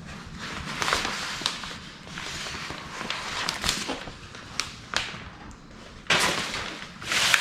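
Hands working a vinyl decal onto a car bonnet: a series of short hissing and scraping bursts with a few light taps, the loudest two near the end.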